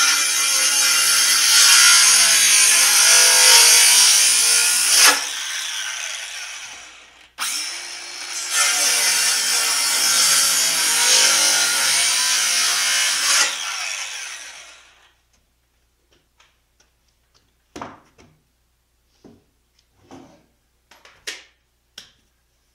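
Power drill boring into solid oak in two long runs, each winding down as it stops, followed by a few light knocks and clicks.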